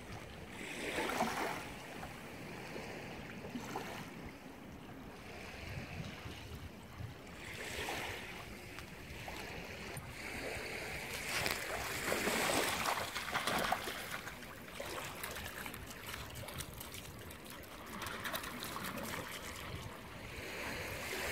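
Shallow sea water lapping and trickling among rocks at the shoreline, swelling louder a few times as small waves wash in.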